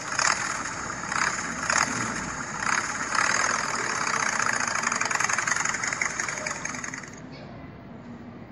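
Motorcycle engine running, swelling in loudness a few times in the first three seconds, then running steadily before it stops about seven seconds in.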